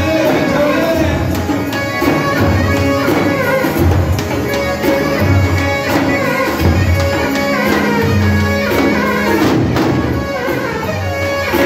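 Live davul and zurna folk dance music: a zurna plays a reedy melody over the beat of two large davul bass drums.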